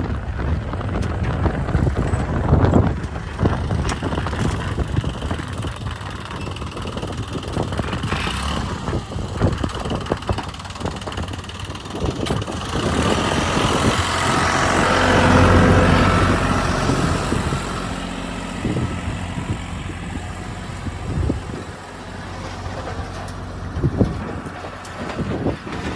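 Diesel engine of a JCB 3DX backhoe loader running under working load, rising in level for a few seconds around the middle, with short knocks throughout.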